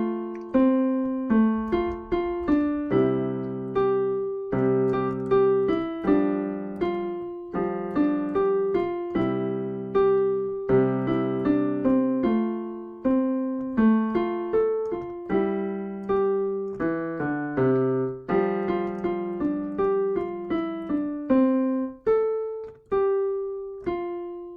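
Piano playing a simple beginner melody with both hands: single right-hand notes over held left-hand intervals of a fifth and a second in the bass, each note struck and left to fade.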